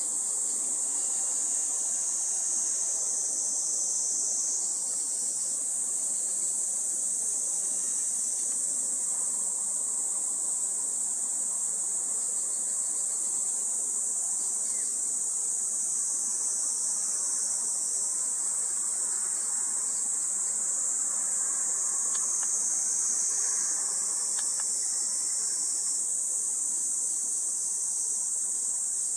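A steady, high-pitched chorus of buzzing insects, unbroken throughout.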